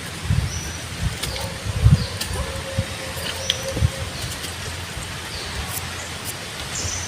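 Outdoor ambience: a steady background hiss with faint short high chirps scattered through and a few low thumps, the loudest about two seconds in.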